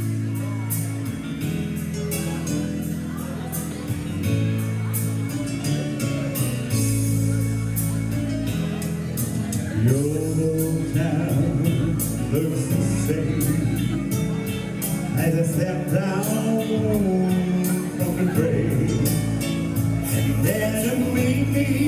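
Live pop song with backing music and a steady drum beat; a man starts singing into a microphone about halfway through.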